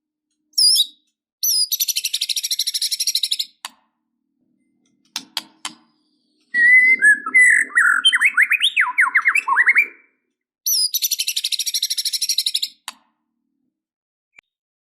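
White-rumped shama singing: two bursts of fast, high, rapidly repeated trill notes, a few short clicks, and a lower phrase of quick sliding whistles in between.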